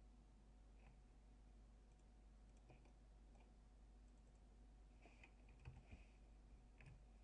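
Faint computer mouse clicks, about eight of them, more closely spaced in the last couple of seconds, over a steady low hum.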